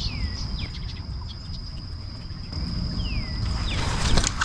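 Insects shrilling in one steady high-pitched tone, with a bird giving a couple of falling whistled calls, over a low rumbling outdoor background. A brief rustling burst with a few clicks near the end.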